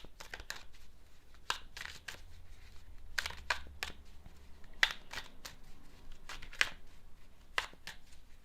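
A deck of tarot cards being shuffled by hand: irregular dry slaps and clicks of the cards against each other, a dozen or so, some louder than others.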